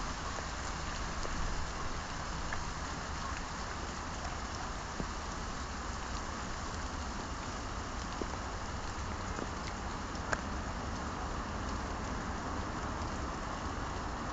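Steady hiss of wet snow falling and pattering on leaves and ground, over a low rumble, with a couple of faint clicks about five and ten seconds in.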